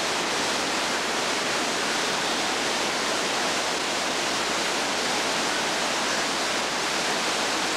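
Steady rush of water cascading over the rock terraces of a tropical waterfall, an even, unbroken hiss with no breaks.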